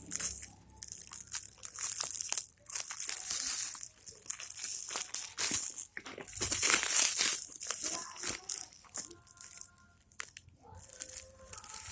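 Packaging being handled and unwrapped, crinkling and rustling in irregular bursts.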